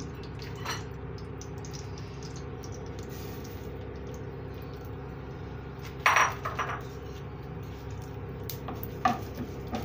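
Small hard seeds poured from a bowl into a metal kadhai, with light clinking of kitchenware and one sharp clink of a dish against metal about six seconds in, over a steady low hum.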